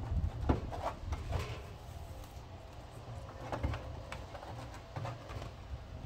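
A few faint knocks and rustles from a phone being handled, over a low steady rumble.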